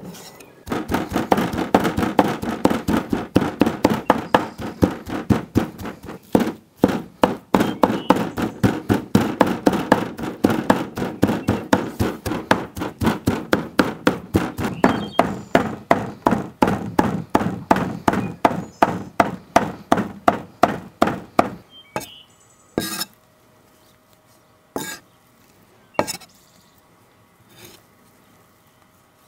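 Knife chopping rapidly on a cutting board, about four strokes a second, with a brief break about six seconds in. Near the end it slows to a few separate knocks.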